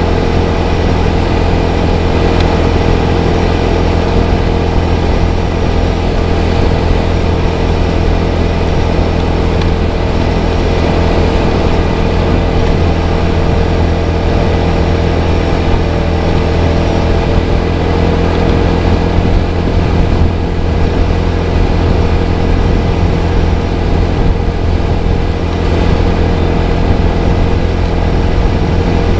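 A 250cc motorcycle engine running at a steady cruising speed, an even drone that holds one pitch with no gear changes or revving.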